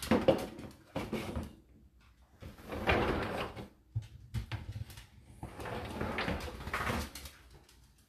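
Pans, a bowl and plastic food containers being moved about in a dishwasher's wire racks: a run of knocks, clatters and rattles in several bursts.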